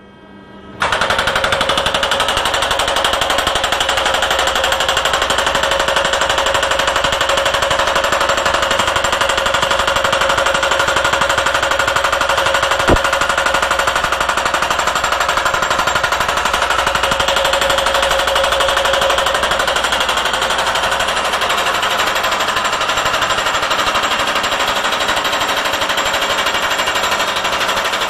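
Steel sheet piles being driven by a hydraulic hammer: a continuous, rapid, machine-gun-like hammering of metal on metal. It starts abruptly about a second in and keeps an even pace.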